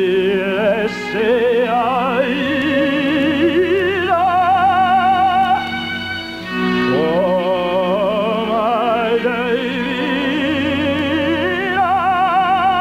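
A man singing loudly in a mock-operatic style with a wide, fast vibrato, over held accompaniment chords. He sings two long phrases, each climbing step by step, with a short break for breath about six seconds in.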